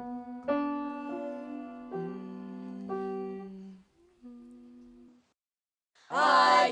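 A few sustained notes on an electronic keyboard, changing about once a second and then fading, giving an opening pitch; after a short gap a group of voices starts singing together in harmony near the end.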